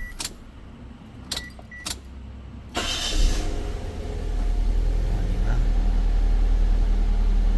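Perodua Myvi engine being started: a few clicks, then the engine catches about three seconds in and settles into a steady idle. It starts without the EFI fuse blowing, the short in the wiring harness now repaired.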